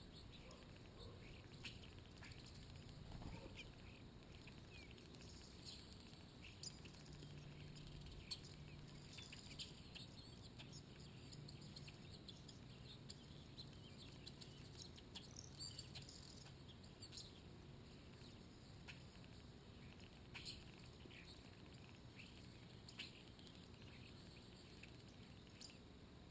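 Faint, scattered short bird chirps over a quiet outdoor background, with a faint low hum through the middle.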